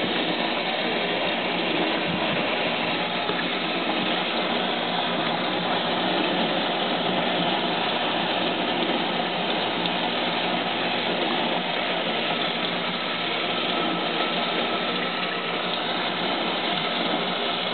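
Water running steadily from a tap into a steel sink, a constant rushing hiss.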